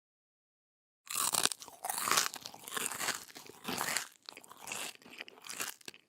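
A person chewing crunchy food with the mouth close to the microphone: a run of loud, wet crunches, one clump about every half to one second, starting about a second in.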